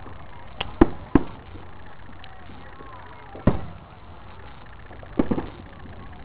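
Aerial fireworks shells bursting: sharp bangs, three in quick succession in the first second or so, one about three and a half seconds in, and a close pair near five seconds, each fading quickly.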